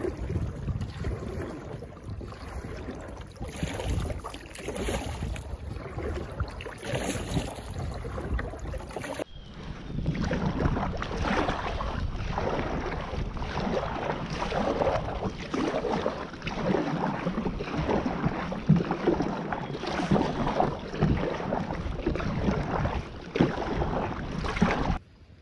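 Kayak paddle strokes dipping and splashing through the water in a steady run, with wind rumbling on the microphone.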